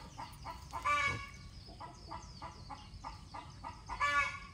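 Chickens clucking, with two louder drawn-out calls, one about a second in and one near the end, and soft quick clucks in between.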